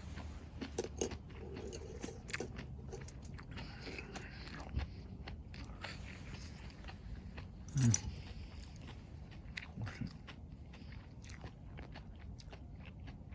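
A person biting and chewing a charcoal-grilled whole green bell pepper, with small crunches throughout. There is a brief falling hum about eight seconds in.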